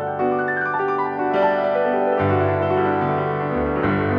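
Background piano music: a melody of changing notes over held bass notes.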